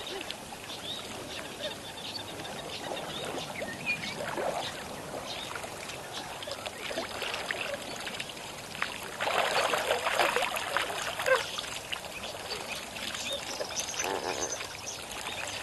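Outdoor ambience: a steady rushing noise with scattered bird calls, swelling louder for about two seconds some nine seconds in.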